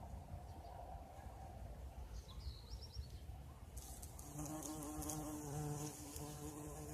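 Bumblebee buzzing in flight close by: a low droning hum with a stack of overtones that comes in about four seconds in and wavers slightly as it flies. A short bird chirp is heard about halfway through, before the bee comes near.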